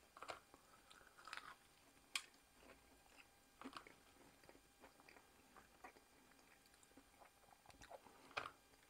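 Breaded chicken patties' crumb coating crackling and crunching faintly as they are torn apart by hand, in a scatter of short crackles, the sharpest about two seconds in and another near the end.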